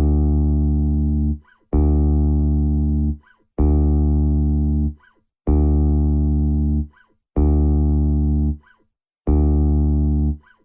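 Five-string bass guitar playing the same low open-string note six times, each held about a second and a half and then stopped, as a tuning reference.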